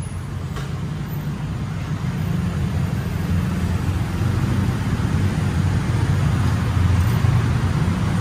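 Scooter and motorcycle engines running in slow, jammed traffic inside a narrow concrete underpass: a steady low rumble that grows gradually louder.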